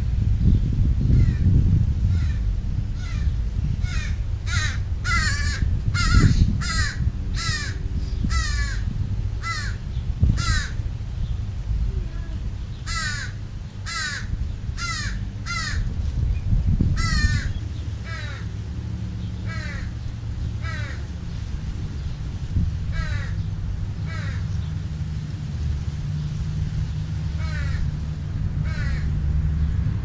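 Crow cawing over and over, harsh calls in quick runs of about two a second that thin out in the second half, over a steady low rumble.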